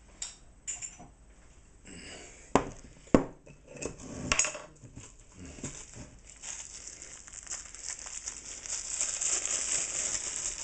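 Spice containers being handled at a kitchen counter: a few sharp knocks and clinks as they are picked up and set down, then several seconds of a steady high rustling hiss, as of seasoning being shaken out.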